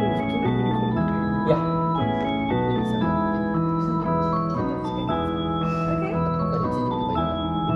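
Background music: a melody of held notes over sustained chords, changing about every half second.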